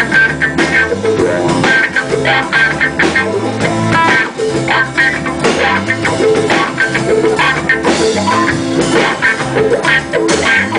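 Live rock band playing an instrumental passage between sung lines, with guitar over a drum kit keeping a steady beat.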